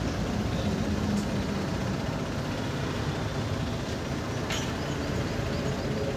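A vehicle engine running steadily, the sound low and even, with a faint click about four and a half seconds in.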